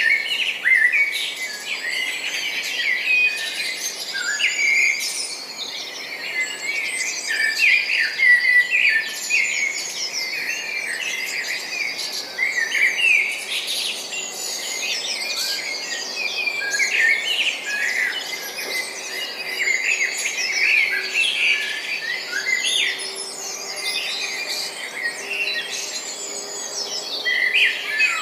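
A chorus of many birds chirping and singing at once, with dense, overlapping short calls and trills.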